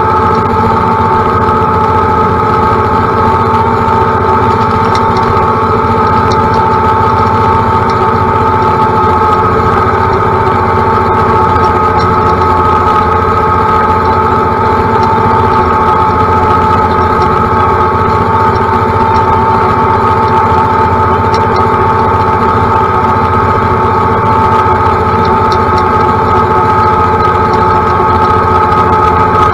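John Deere utility tractor's diesel engine running steadily at working speed while mowing tall grass, with a steady high-pitched whine over the engine note.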